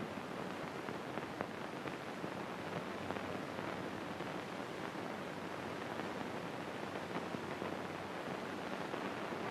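Steady hiss and surface noise of an early-1930s film soundtrack, with a few faint crackles.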